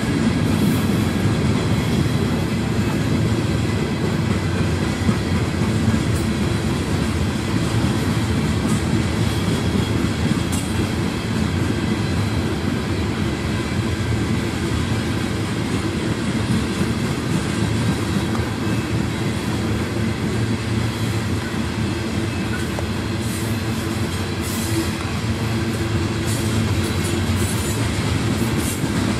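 Coal hopper cars of a freight train rolling past: a steady rumble of steel wheels on the rails, with a few faint high-pitched squeaks near the end.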